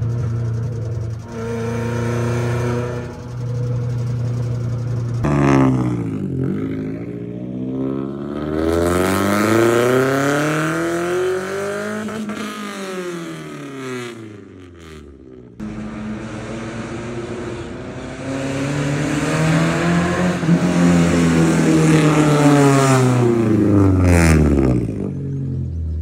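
Daihatsu Charade's three-cylinder engine running through a straight-pipe stainless steel exhaust. It is steady for the first few seconds as heard from inside the cabin while driving. From about five seconds in the car passes by outside twice, swelling and then fading each time, with a loud, deep exhaust note.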